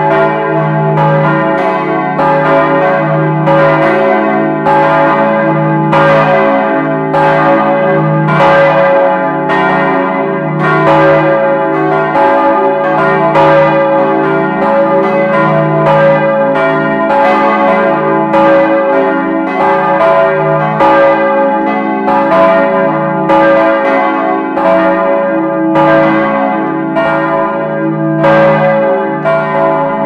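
Cast-steel church bells by the Bochumer Verein swinging and ringing together in a full peal, heard loud and close from inside the belfry. Clapper strikes fall about once a second and overlap, over a continuous ringing hum.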